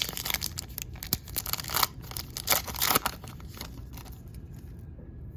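Trading card pack wrapper being torn open and crinkled, a run of rustling, crackling rips for about three seconds that then stops.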